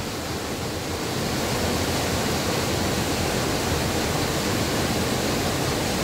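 Waterfall in a mountain canyon: a steady, even rush of falling water, a little louder after about a second.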